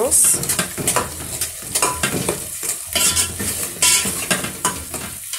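A metal spoon stirring thick tomato sauce in a metal pot, with irregular scrapes and clinks against the pot as tomato paste is mixed in, over a light sizzle of the sauce cooking.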